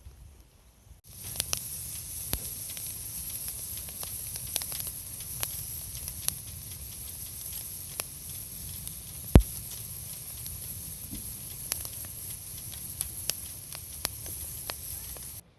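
Wood campfire burning with a steady hiss and scattered sharp crackles and pops, one loud pop about nine seconds in. It starts suddenly about a second in and cuts off suddenly near the end.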